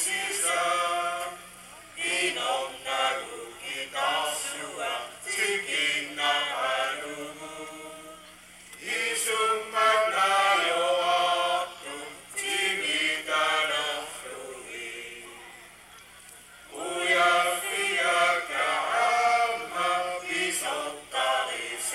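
A group of Greenland elders singing together without accompaniment, in long phrases with short pauses between them.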